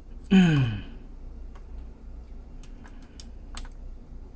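A short falling-pitched vocal sound near the start, then a scattering of small, sharp clicks and taps from handling a tiny plastic ribbon-cable connector and its flip-lock lid.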